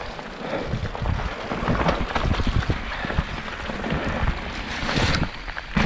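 Nukeproof Giga mountain bike ridden down a rough, wet trail: wind rushing over the camera's microphone, with the bike knocking and rattling over bumps.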